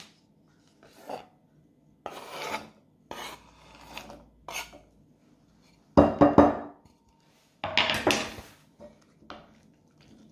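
Chopped chocolate pieces scraped and slid across a wooden chopping board into a glass bowl: a series of short rasping scrapes, with louder clattering bursts about six seconds in and again near eight seconds.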